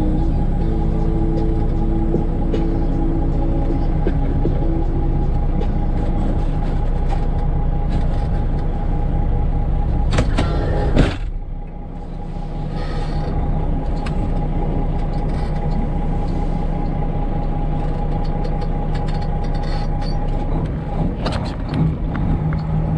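Freightliner Classic XL semi truck's diesel engine running steadily, heard from inside the cab, with water spraying against the windshield for about the first ten seconds. A single sharp knock about eleven seconds in, after which the spraying stops.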